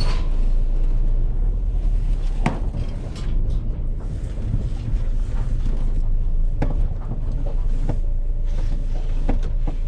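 Van on the move: a steady low engine and road rumble, with a few sharp clicks and creaks from the van's body, one about two and a half seconds in and two more near the end.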